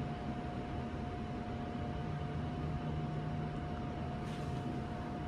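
Passenger lift car in motion: a steady hum with a thin, constant tone above it, heard inside the car.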